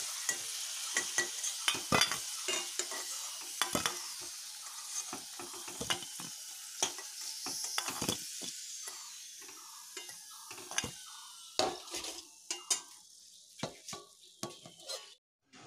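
Potato chunks sizzling in hot oil in a metal kadai while a spatula scrapes and knocks against the pan, lifting the fried potatoes out. The sizzle fades toward the end, leaving scattered clicks of the spatula.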